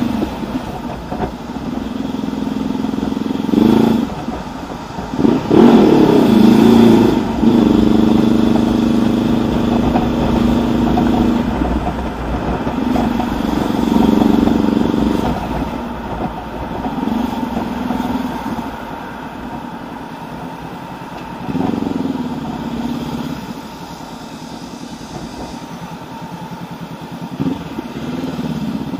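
A 2019 Honda CB500X's parallel-twin engine through a Mivv Suono aftermarket exhaust, heard from the rider's seat. It revs up and eases off several times, its pitch rising and falling, with the loudest pull about six seconds in. The second half is quieter and lower as the bike slows.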